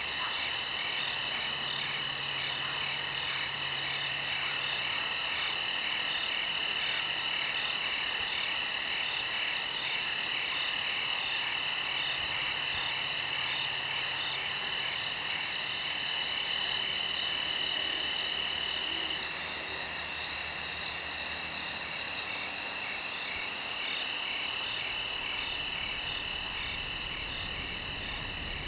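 Chorus of night insects in woodland: several overlapping steady high trills and a very rapid, fine pulsing high chirping, continuous and even.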